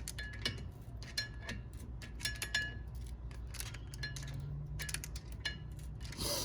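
Flat-head screwdriver clicking and scraping against a Brembo brake caliper as its pistons are pushed back: a run of sharp, irregular metallic clinks, some ringing briefly.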